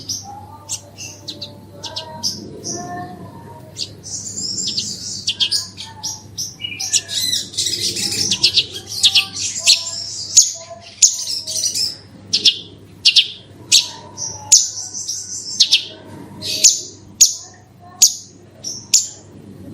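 Javan bush lark (branjangan) singing a long, fast, varied song of high chirps, trills and buzzy rattles. It grows denser and louder in the middle, then breaks into sharp separate notes about twice a second near the end, over fainter lower whistles and a steady low hum.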